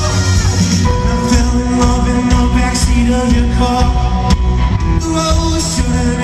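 Live rock band playing in a club, long held notes over bass and drums, heard from within the audience.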